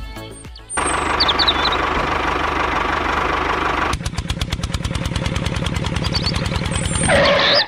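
Tractor engine running with a rapid, even beat. Its sound changes about four seconds in, becoming a sharper, more distinct beat.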